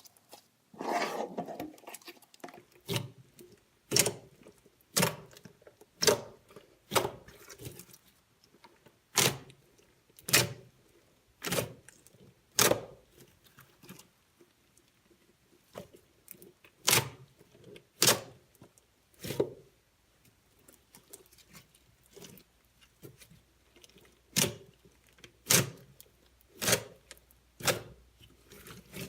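Slime being squeezed and pressed by hand: a squelchy stretch about a second in, then a run of sharp pops of trapped air, roughly one a second with a few short pauses.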